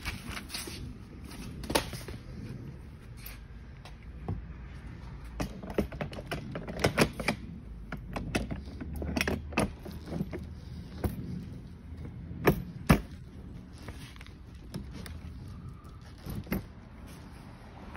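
A kids' ride-on quad bike's metal steering frame and plastic body parts clattering as they are handled and fitted together: scattered sharp clicks and knocks, with a cluster in the middle and the two loudest knocks near the end.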